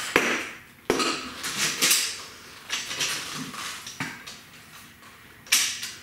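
Irregular metallic clanks and knocks from a Rabaconda portable tire changer as its lever-driven bead breaker is pushed down and repositioned around a motorcycle tire, breaking the bead. About half a dozen sharp knocks come at uneven intervals, with quieter gaps between.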